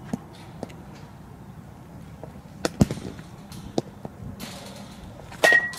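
Batting-practice impacts: a sharp crack about halfway through, a fainter knock a second later, and near the end the loudest hit, a baseball struck by a metal bat with a short high ringing ping.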